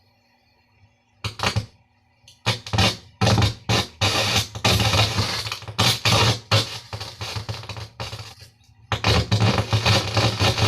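Faulty Conzert amplifier putting out irregular bursts of loud hissing, crackling noise over a steady low hum. The noise starts about a second in, becomes almost continuous, stops briefly, then returns loud near the end. This hiss is the fault under repair. It goes away when the volume is turned down, which the technician takes to point to a capacitor, resistor or the preamp.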